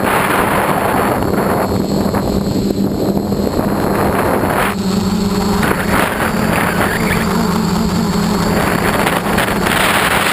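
Dead Cat 450 quadcopter's motors and propellers droning, with heavy wind noise on the onboard microphone; the hum shifts in pitch a few times as the throttle changes.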